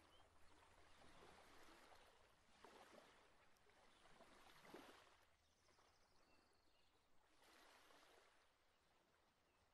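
Very faint water sound, a soft rushing that swells and ebbs every two to three seconds and fades away toward the end.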